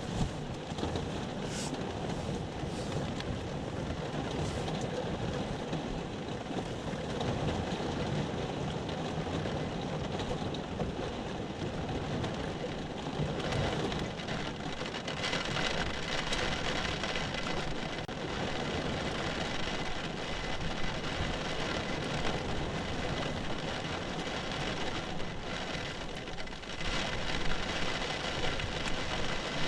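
Rain falling steadily in a heavy downpour during a storm: a dense, even hiss with a few sharp drip or splash sounds early on, growing a little louder about halfway through.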